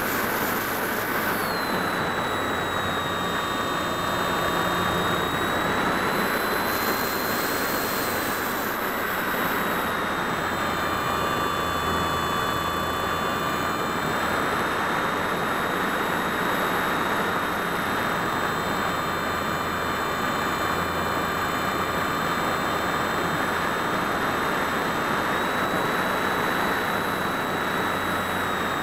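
Electric motor and propeller of a Phoenix 1600 RC glider running under power, a steady whine that wavers slightly in pitch, over the rush of air past the wing-mounted camera.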